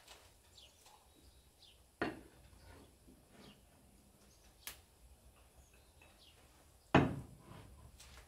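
A ceramic cup and saucer set down on a kitchen counter with a knock about two seconds in, then a glass jar set down with a louder knock near the end, with a few lighter clicks between.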